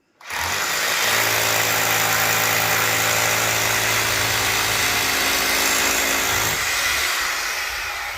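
Electric power tool switched on abruptly, its motor running at a steady speed for about six seconds, then released and spinning down.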